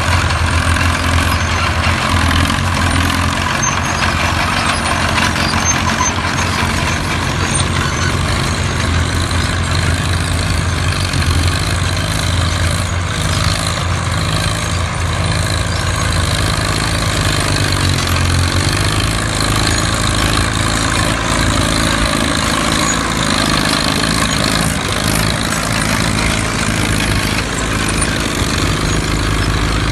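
Vintage OM crawler tractor engine running steadily under load while pulling a plough, a loud, even low drone.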